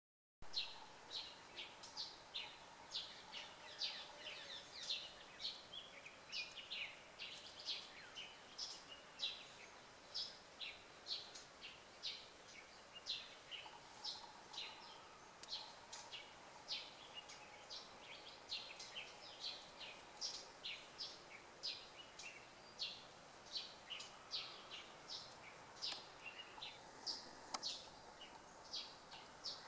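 Wild birds chirping in the forest: a steady run of short, high chirps, about two a second, over faint background hiss.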